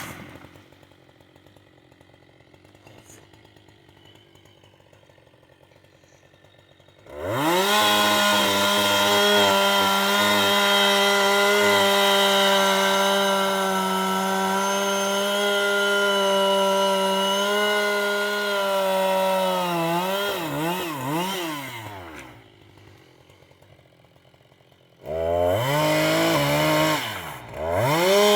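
Chainsaw revving up sharply about seven seconds in and held at a steady high pitch for around twelve seconds, then the throttle is blipped up and down and let go; it revs up again a few seconds before the end, with a short dip.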